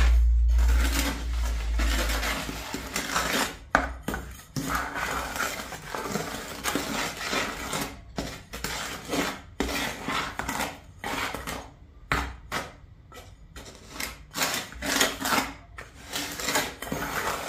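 A utensil scraping in a container as it stirs a dry mix of white cement, marble dust and powdered pigment, in many irregular strokes. A low rumble sounds during the first two seconds.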